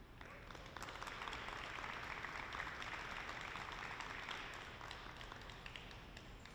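Audience applauding, the clapping building just after the start and tapering off over the last couple of seconds.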